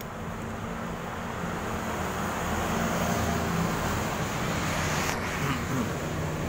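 Road traffic: a motor vehicle's engine hum and road noise swell as it passes, loudest about midway, then ease off.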